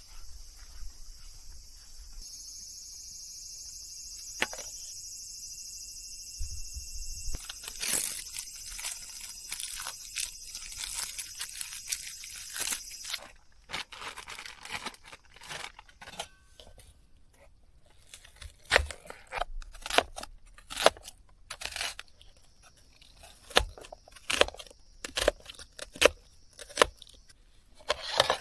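Handling noises: tearing and rustling, then a run of irregular sharp clicks and knocks that grow louder in the second half, over a steady high hiss that stops about halfway through.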